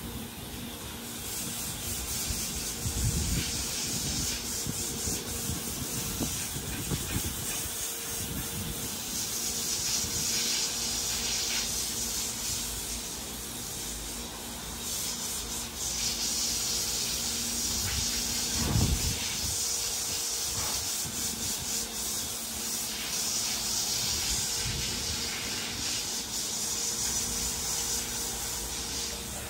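Garden hose spraying water over a horse and splashing onto a rubber wash-stall mat: a steady hiss that grows louder and softer as the stream moves over the body.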